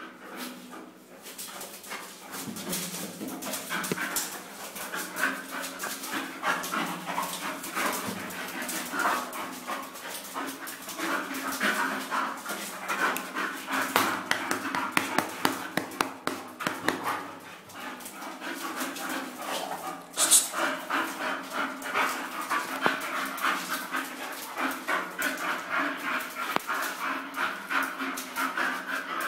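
Bull terriers panting fast and steadily while mating, with some whimpering. There is one brief sharp noise about twenty seconds in.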